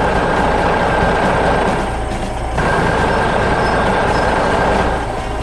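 Heavy construction machinery running steadily: a dense engine rumble with a thin steady whine, easing off briefly about two seconds in and dropping a little near the end.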